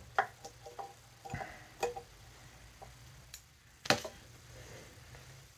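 Scattered small clicks and taps of fly-tying tools (scissors and the like) being handled at the vise, about nine in all, the loudest a sharp click a little under four seconds in.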